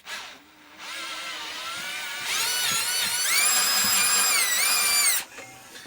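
Electric drill running in the stripped thread hole of a pit bike's engine block to open it out for a helicoil insert. It starts about a second in, speeds up to a higher whine partway through, and stops sharply near the end.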